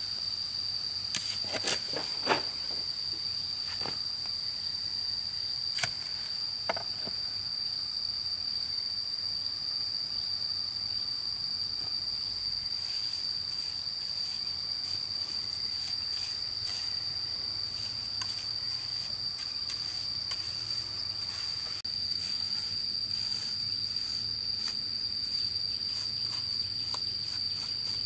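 Insects droning on one steady high-pitched note, with a few sharp knocks and scrapes of hand tools working wet mortar in the first several seconds, the loudest about two seconds in.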